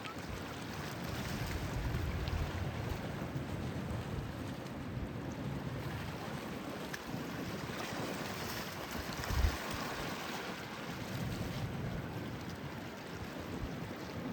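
Wind buffeting the microphone: a steady rushing noise with gusty low rumbles and one sharp low thump about nine seconds in.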